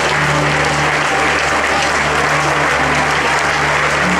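Crowd applauding and clapping steadily for a team, with music playing underneath.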